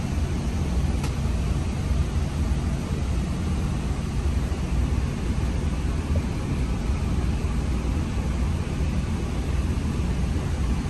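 Steady low rumble of a vehicle running, with an even hiss above it and a faint tick about a second in.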